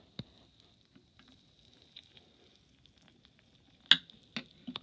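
Faint crackle of Sprite fizzing around Froot Loops in a bowl: a scatter of tiny pops over a thin hiss, with a few sharper clicks near the end, the loudest about four seconds in.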